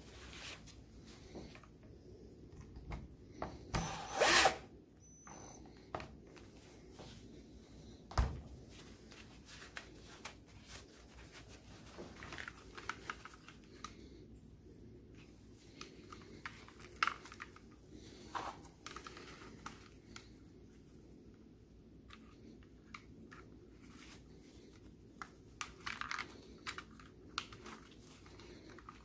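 Plastic clicks, taps and rubbing from handling a Renault Megane II steering column switch and airbag clock spring assembly. A louder short rasping burst comes about four seconds in, and a sharp knock follows a few seconds later.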